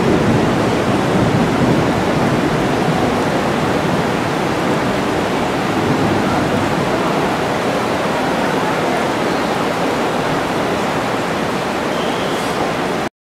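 Steady rain, a dense even hiss with no distinct drops or voices, which cuts off suddenly near the end.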